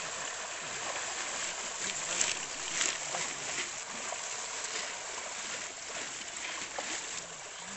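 Many fish thrashing and splashing at the surface of crowded shallow water: a steady churning of water with sharper splashes about two and three seconds in.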